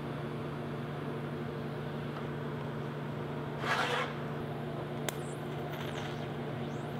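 Steady electrical hum of a TIG welding machine left running between welds, with a short hiss a little past halfway and a single sharp click about a second later.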